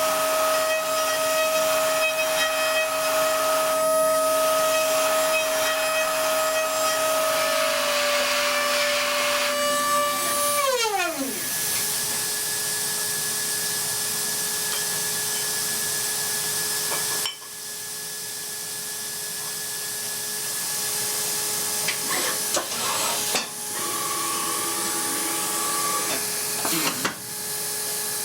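DATRON high-speed milling machine cutting with its spindle whining at a steady pitch; about ten seconds in the whine falls away as the spindle slows, and a steady hiss with a lower machine whine follows.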